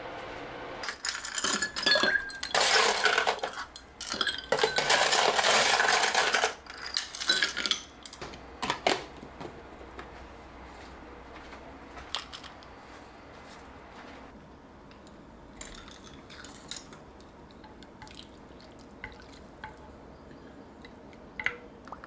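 Dishes and cutlery clinking and clattering, busiest and loudest in the first seven seconds or so, where there are also two stretches of rushing noise lasting a couple of seconds each. After that there are only scattered light clinks.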